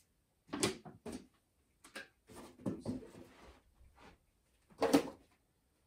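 Empty plastic drinks bottles and a milk carton being picked up and set back upright on a carpet: a series of light knocks and clatters, the loudest about five seconds in.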